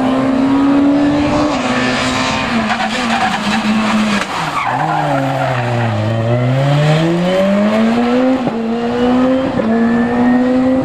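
A rally car's engine at high revs, its note stepping down through gear changes, then sinking sharply about four seconds in as the car slows, with tyre squeal and skidding. It then climbs again under hard acceleration, with two quick upshifts near the end.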